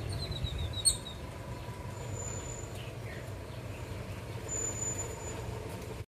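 A quick falling run of faint bird chirps in the first second, broken by one sharp click, then two brief thin high whistles later on, all over a steady low background rumble.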